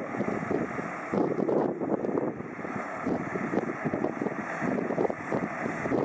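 Diesel engines of crawler bulldozers running steadily as they crawl across river ice, heard from a distance with wind buffeting the microphone.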